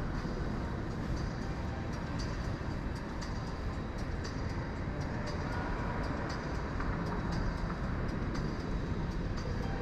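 Steady low rumbling ambience of a large industrial hall, with light footsteps on the concrete floor about twice a second.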